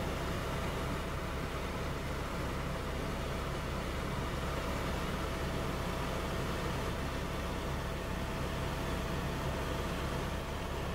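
Helicopter in flight, heard from inside the cabin: a steady drone of rotor and engine noise with a thin steady whine above it.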